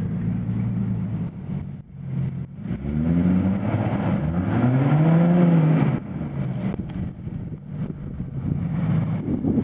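Jeep Wrangler TJ engine running, then revving: the engine note climbs about three seconds in, holds high, and drops back sharply at about six seconds before it carries on at a lower pitch.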